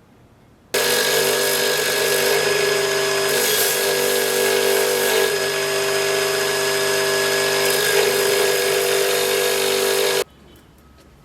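A power tool running steadily at one speed, with a constant pitched whine over a grinding noise. It starts suddenly about a second in and cuts off suddenly near the end.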